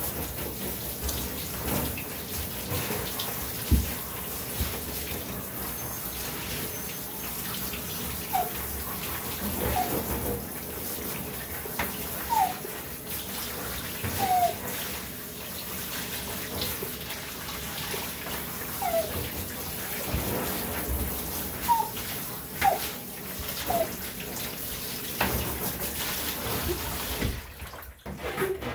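Handheld shower head spraying water over a wet dog in a bathtub: a steady hiss of spray with water splashing into the tub, cutting off near the end as the water is turned off.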